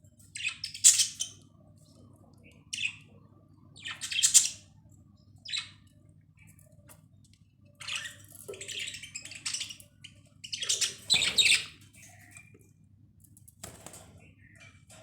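Budgerigars chirping and squawking in short, irregular bursts of high-pitched chatter, about seven times, over a faint steady low hum.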